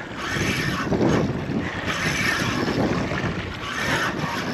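Wind buffeting the microphone and sea water washing around a small boat: a rough, steady noise with hissier patches that swell and fade.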